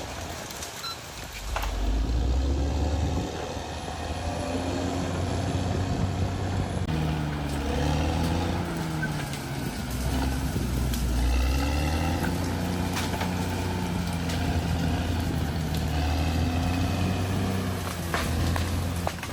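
Bulldozer's diesel engine running as the machine works, its pitch rising and falling with the load.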